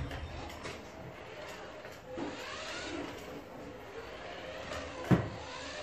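Remote-control BMW i8 toy car's small electric drive motor whining faintly as it drives over a concrete floor, the pitch rising and falling with its speed. One sharp knock about five seconds in.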